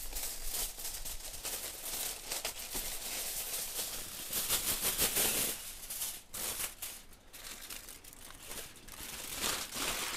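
Aluminium foil crinkling and crackling as it is peeled off a roasting pan and then crushed into a ball by hand. It comes in irregular flurries, loudest about halfway through.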